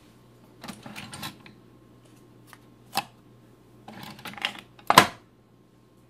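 Clicks and clacks of hands working the plastic parts of a Keurig B140 commercial coffee brewer, the loudest a sharp clack about five seconds in, over a low steady hum.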